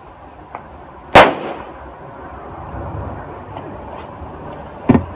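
Powerful firecrackers exploding: a faint crack, then one very loud sharp bang about a second in with a short fading tail, and another loud bang near the end.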